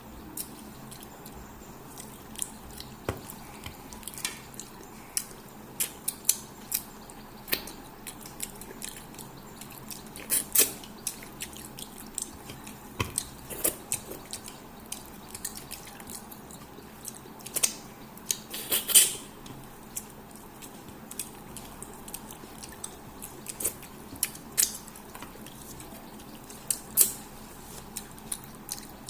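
Close eating sounds: irregular wet smacks and clicks of a mouth chewing and sucking on fish head and rice, with the loudest cluster about two-thirds of the way through.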